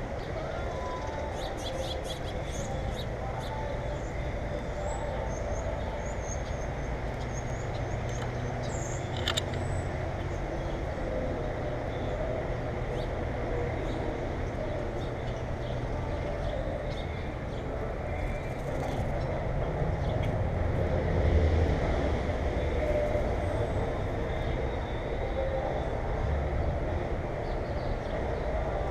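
Faint high bird chirps over a steady low rumble, with one sharp click about nine seconds in; the rumble swells a little about two-thirds of the way through.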